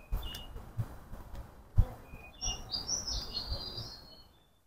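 Small birds chirping and trilling in short high calls, busiest in the second half. Under them is low wind buffeting on the microphone, with one thump a little under two seconds in.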